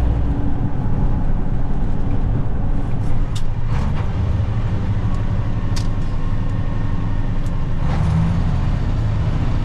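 Vehicle engine running steadily under way with road noise, carrying a load of grain, with a few brief sharp rattles.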